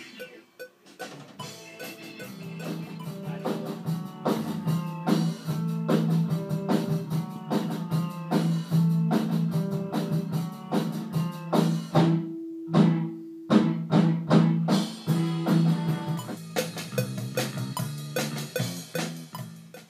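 A band playing an instrumental passage on drum kit, guitar and keyboard: a steady drum beat under low held notes and short melodic notes. About twelve seconds in the band thins out to a single held note and a few drum hits for a second or so, then comes back in full.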